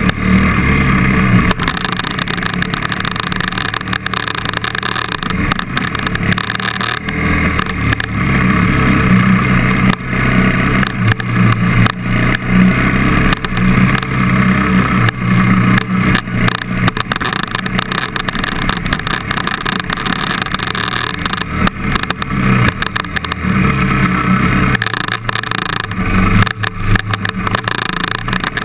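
KTM trail bike's engine running as it rides a rutted dirt track, its note swelling and easing off with the throttle, with frequent knocks from the bumps.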